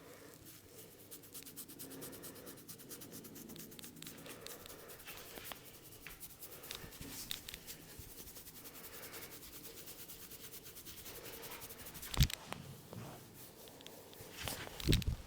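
Hands rubbing and scratching through hair over the scalp during a head massage, a fast fine scratchy rustle. A sharp knock sounds about twelve seconds in, and a short cluster of louder knocks comes near the end.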